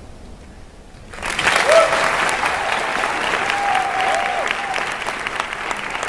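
Audience applause: about a second of hush, then clapping starts and holds steady, with a few voices whooping and cheering.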